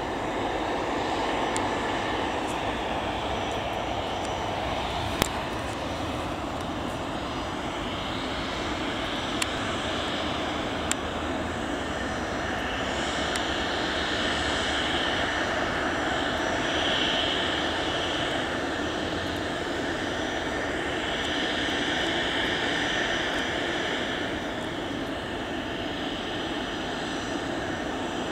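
Cessna 680A Citation Latitude business jet's twin turbofan engines running at low taxi power: a steady rushing hum with a higher hiss that swells and eases in the middle. Three brief sharp clicks sound in the first half.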